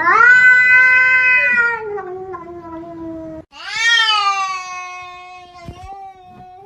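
A cat yowling: two long drawn-out calls, the first trailing down in pitch and the second starting about halfway through, rising and then held.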